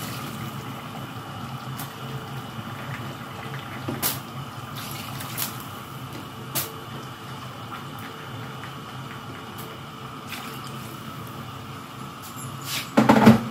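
Hot water poured from a cup into a steel pot of chicken masala at the start, then a steady low hum with a few faint clicks. A brief loud clatter comes near the end.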